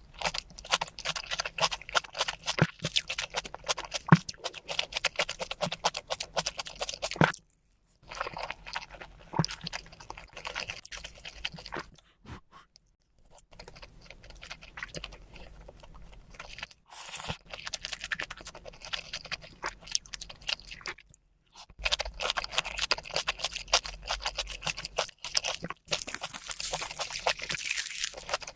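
Crunchy chewing: rapid runs of crisp bites and crunches, broken by short pauses about seven, twelve and twenty-one seconds in.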